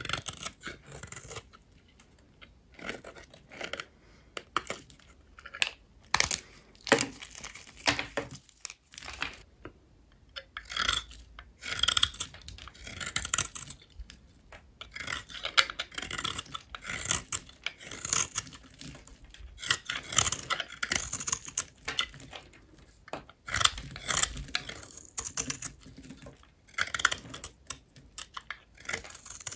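A blade cutting through dry bar soap: irregular runs of crisp, crackling crunches and scrapes, with short pauses between the strokes.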